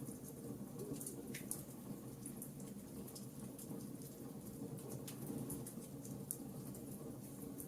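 Wood fire crackling in a fireplace: irregular sharp snaps and pops over a steady low rush of the flames.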